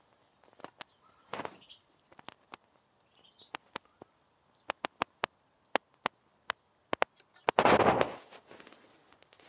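A fox squirrel biting and chewing banana from a hand, with sharp, scattered clicks and smacks at irregular spacing. A louder rustling scuffle comes about three-quarters of the way through.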